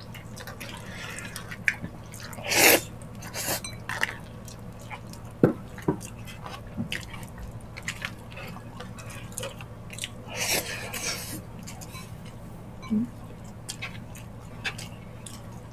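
Close-up wet eating sounds from ox-feet balbacua stew eaten by hand: chewing, lip smacks and sticky finger and sauce noises as small irregular clicks. Two louder, longer wet bursts stand out, one near the start and one about two-thirds through, over a faint steady low hum.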